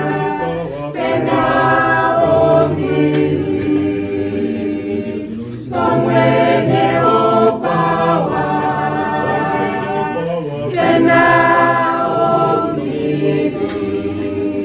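A choir singing in harmony, in long held phrases with brief breaks between them.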